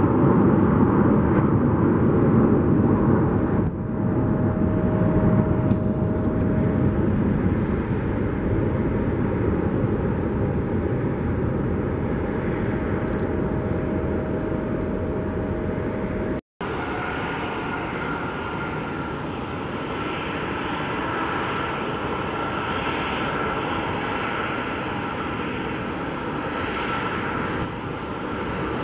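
Twin turbofan engines of jet airliners at takeoff power, a steady roar with a held whine. The sound cuts out for an instant a little past halfway and comes back with a higher whine.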